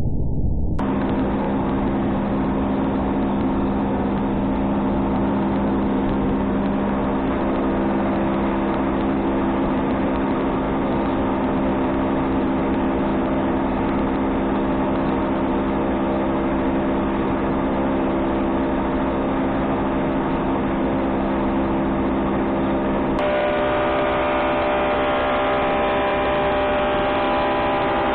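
An 18-inch Woodmaster thickness planer running: a loud, steady machine hum with a few held tones. Near the end the hum changes abruptly to a set of higher tones.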